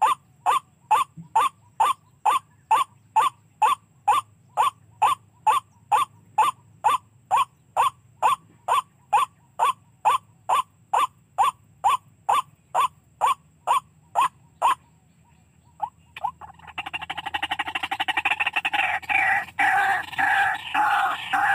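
White-breasted waterhen calls played as a lure: a steady run of single notes, about three a second, which stops about two-thirds of the way through. After a short pause comes a loud, rapid run of harsh croaking and chattering calls.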